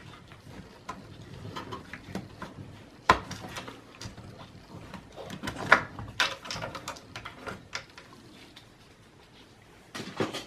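Memory modules being unlatched and pulled from their slots in a desktop PC: scattered plastic clicks from the retention clips and light handling knocks, the sharpest click about three seconds in and another just before the middle.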